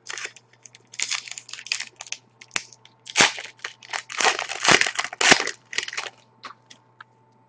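Trading card pack wrapper being torn open and crinkled by hand, a run of irregular crackles and crunches.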